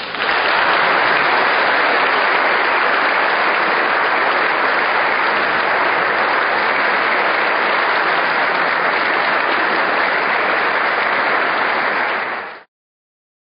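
Audience applauding, loud and steady, cutting off suddenly near the end.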